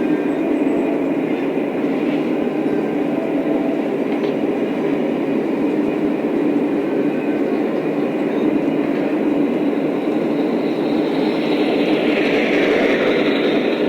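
Lionel O-scale model train running on its track, a steady rumble of motor and wheels, with a brighter hiss swelling up near the end.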